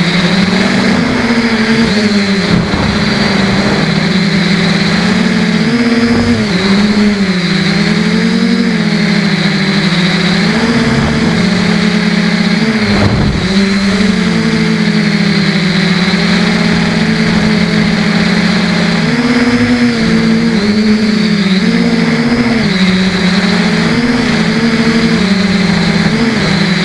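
Multirotor's Emax brushless motors and propellers whining steadily, the pitch swinging up and down with throttle changes and dropping sharply several times as the throttle is chopped and reapplied.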